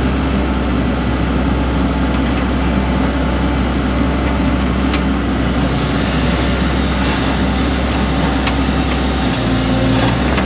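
Hydraulic excavator's diesel engine running steadily as the bucket digs out soil and sod, with a few short clinks about halfway through and near the end. The engine note shifts near the end as the bucket dumps its load.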